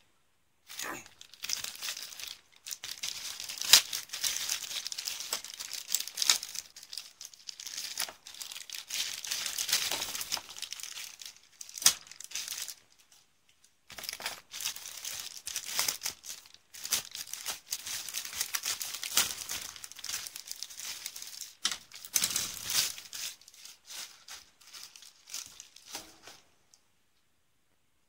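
Clear plastic parts bags crinkling and rustling as plastic model kit parts are handled and pulled out of them. The sound comes in two long stretches with a short pause about halfway through.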